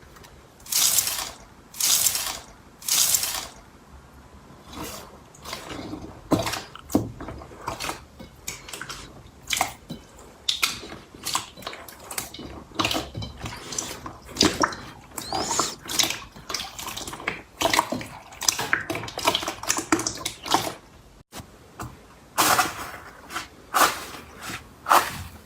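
Slime being squeezed and pressed by hand, giving a string of short wet squelches and pops at an irregular pace.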